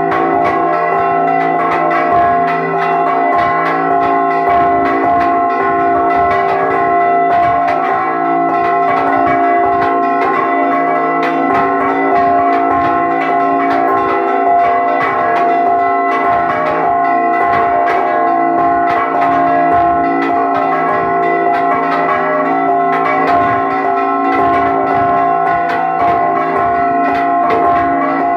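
Mexican church-tower repique: several bronze bells of different sizes struck rapidly and continuously by their clappers. A dense, fast rhythm of strikes rides over the bells' steady, lingering ring, heard up close in the belfry.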